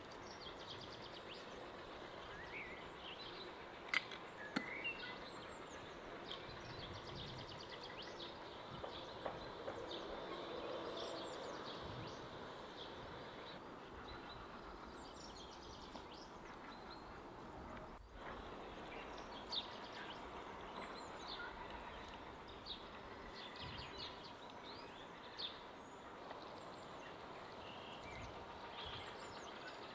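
Small birds chirping and twittering on and off over faint steady outdoor background noise, with a few brief knocks, the sharpest about four seconds in.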